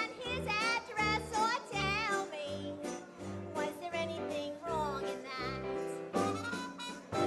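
Jazz dance band playing an instrumental chorus of a 1920s-style song: a melody with vibrato over a bass line that keeps a steady beat of about two notes a second.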